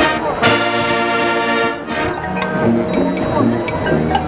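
Marching band playing, with a loud full-band chord held for about a second and a half near the start before the music moves on to shorter notes.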